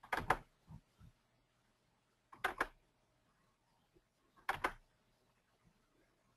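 Computer mouse double-clicking three times, about two seconds apart, each a quick pair of sharp clicks, opening folders one after another. Two softer taps follow the first double-click.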